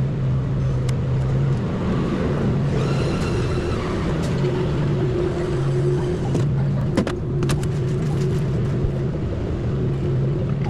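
A steady low mechanical hum with a pitched drone that fades in and out, and a few sharp clicks about seven seconds in.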